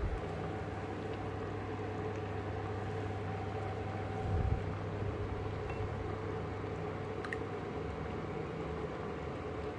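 Steady machine hum with a low drone and a couple of fixed higher tones, and one brief low knock about four and a half seconds in.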